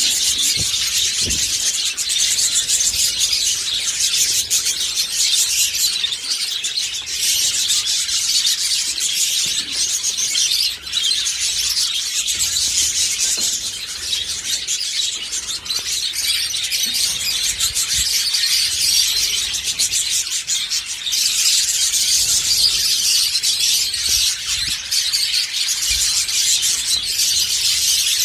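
A flock of budgerigars chattering without pause, a dense high-pitched mass of chirps and warbles.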